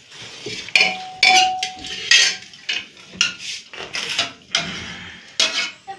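Metal dog food bowls clanking and clinking in a series of sudden knocks, one ringing on briefly about a second in.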